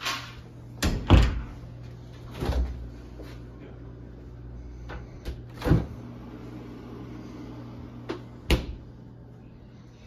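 Doors being opened and closed by hand: a handful of knocks and thumps, the loudest a double knock about a second in, over a faint steady low hum.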